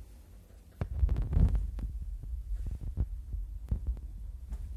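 Insubria-Atlas traction elevator car setting off with a thump about a second in, then a low rumble of travel with scattered knocks and clicks.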